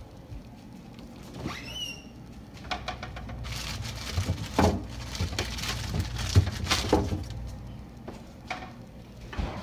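Refrigerator door pulled open, the bottles in its door shelves rattling and clinking against each other, after a short high squeak. A knock comes near the end.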